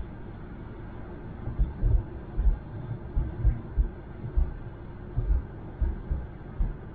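Steady road noise in a moving car, broken by a run of irregular, dull low thumps about a dozen times in the middle of the stretch.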